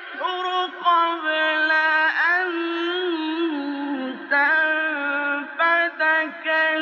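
Quran recitation in the melodic mujawwad style: a man's voice holding long, ornamented notes that waver and turn in pitch, with short breaths about four and five and a half seconds in.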